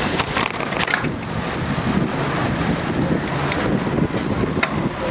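City street traffic with cars passing close by, heard through wind on the microphone of a moving bicycle, with a few sharp clicks scattered through it.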